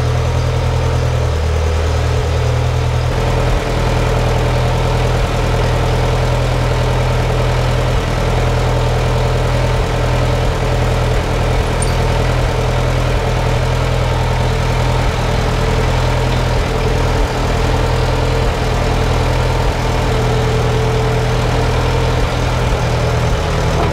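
Farmall 504 loader tractor's engine running steadily at idle, close by. Any hydraulic load from the loader pushing the wheel over does not change its steady note.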